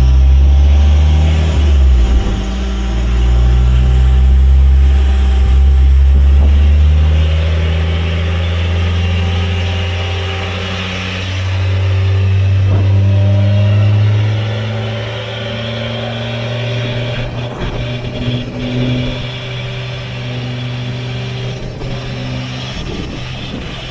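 Car engine running under load on a chassis dyno.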